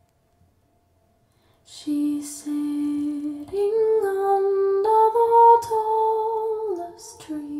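Near silence at first; about two seconds in, a woman's voice begins singing a slow melody of long held notes that step up and down. It is recorded music played back from vinyl on a Linn Klimax LP12 turntable through floor-standing loudspeakers in the room.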